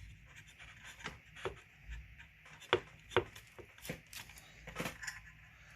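Scattered small clicks and taps of hands handling fuel line and small fittings, the two sharpest clicks about halfway through.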